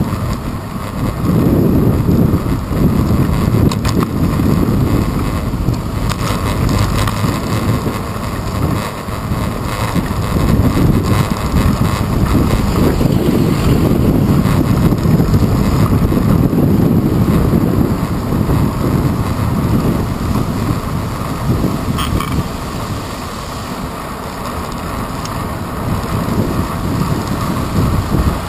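Wind buffeting the microphone of a handlebar-mounted GoPro Hero 2 on a moving bicycle, a loud, fluctuating low rumble, mixed with road and tyre noise and passing city traffic.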